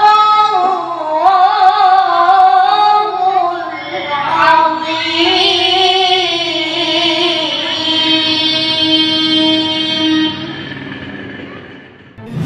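A boy reciting the Qur'an in the melodic tilawah style, with long ornamented phrases wavering up and down in pitch. He holds a long steady note that fades away about ten seconds in.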